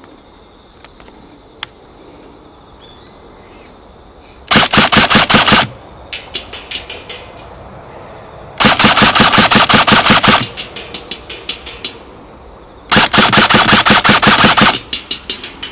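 Airsoft gun firing three full-automatic bursts, each one to two seconds of rapid, evenly spaced shots, with a short quiet gap between bursts. Each burst is followed by a trail of fainter, spaced smacks that die away.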